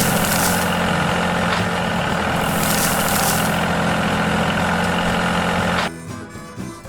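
Heavy vehicle engine running steadily at idle, with two short bursts of hiss. About six seconds in it cuts off abruptly and soft music takes over.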